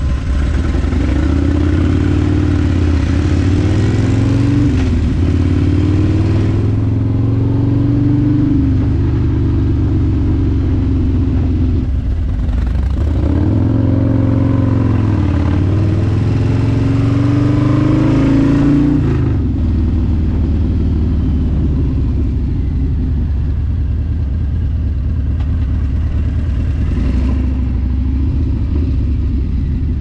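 Harley-Davidson Road Glide's V-twin engine under way, rising in pitch as it pulls away and dropping back at each upshift, three or four times, then running lower and steadier as the bike slows.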